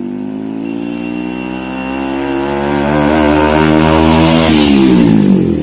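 A KTM 390 motorcycle with a loud exhaust passes close by at a steady throttle. Its single-cylinder engine note grows louder as it approaches and is loudest about five seconds in. It then drops in pitch and falls away as the bike goes past.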